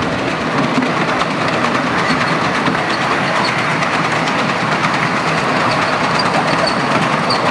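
7.25-inch gauge miniature railway train running on its track, heard from an open passenger carriage: a steady rattle of wheels on rails, with brief high squeaks in the second half.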